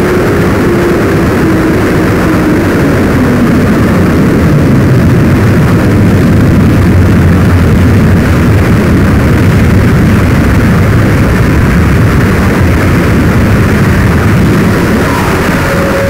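Loud, harsh electronic noise music played live on patch-cabled tabletop electronics. A dense wash of noise sits over a steady low drone, with a tone sliding down in pitch over the first few seconds and a higher tone coming in near the end.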